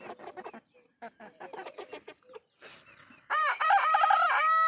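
Chickens clucking in short calls, then a rooster crowing once, one long loud call starting about three seconds in.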